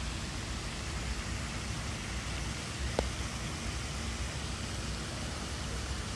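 Steady outdoor rushing noise with a low rumble, and a single short click about three seconds in.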